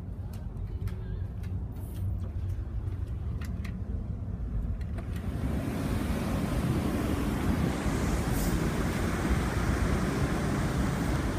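Low, steady rumble of the ferry's engines and machinery, with a few light ticks. About five seconds in it swells into a louder, even rush of wind and the ship's churning wake as the open deck is reached.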